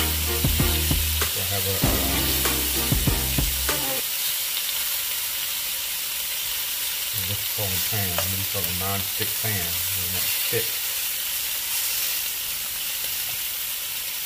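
Monkfish pieces sizzling steadily as they sear in butter in a nonstick frying pan. A metal fork clicks and scrapes against the pan as it turns them, mostly in the first few seconds.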